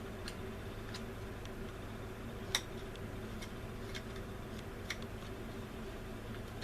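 Light, irregular clicks and taps of small plastic model-kit parts and tools being handled on a workbench, one sharper tap about two and a half seconds in, over a steady low hum.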